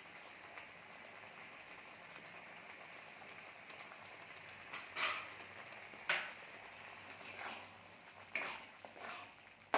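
Chicken pieces sizzling in spiced masala in a pan, a steady hiss. From about five seconds in, a spatula scrapes the pan as the mixture is stirred, about six strokes.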